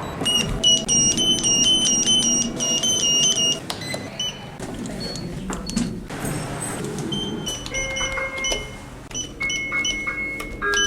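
Elevator beeps and chimes: a quick run of short electronic beeps, about three a second, for the first three seconds or so, then assorted single beeps and chime tones at different pitches.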